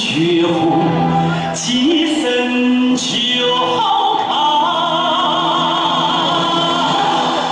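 Opera-style backing music for a Sichuan opera face-changing act, played loud over the stage PA: a melody line that glides and wavers in pitch, with a couple of sharp crashing accents in the first three seconds.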